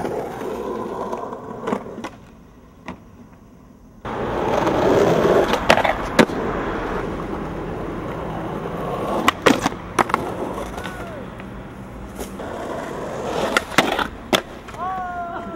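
Skateboard wheels rolling on concrete, with sharp clacks of the board popping, hitting ledges and landing several times. The rolling drops away for a couple of seconds early on, then comes back loud about four seconds in.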